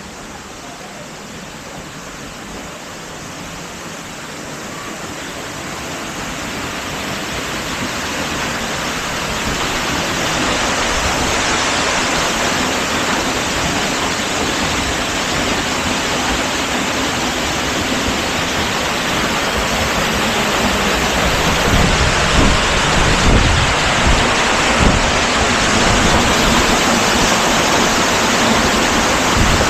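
Waterfall of the Arroyo Alcázar rushing, growing louder over the first ten seconds or so and then steady, with low rumbling bumps from about twenty seconds in.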